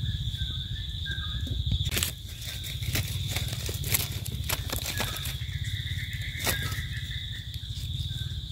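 A steady, high-pitched insect drone, with rustling in dry leaf litter and a few sharp clicks and taps as a small mushroom is dug out and trimmed with a knife.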